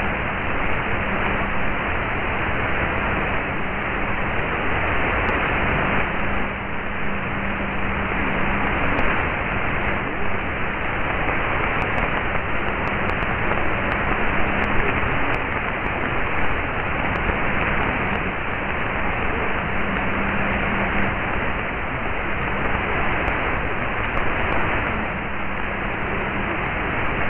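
Shortwave AM receiver tuned to a weak broadcast signal at 11925 kHz, giving mostly steady hiss and static, with a faint low hum that comes and goes every few seconds.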